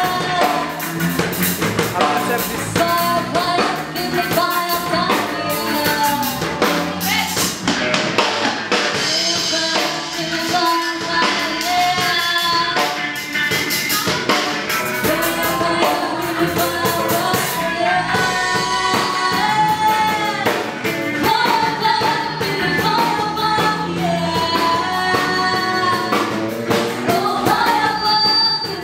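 A woman singing into a microphone, amplified, over accompanying music with drums.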